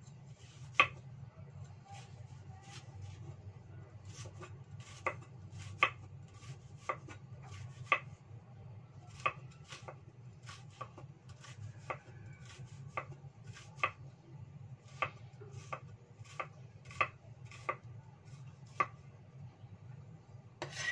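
Chinese cleaver slicing garlic cloves on a round wooden chopping block: single sharp knocks of the blade on the wood, irregular, about one or two a second, some much louder than others. A steady low hum runs underneath.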